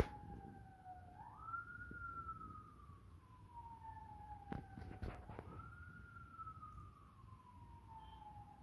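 A siren wailing: a tone that climbs quickly, then slides slowly down over several seconds, repeating about every four seconds. A few soft clicks fall about midway.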